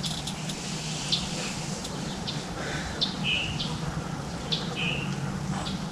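Songbirds chirping, short high notes every second or so, over a steady low hum.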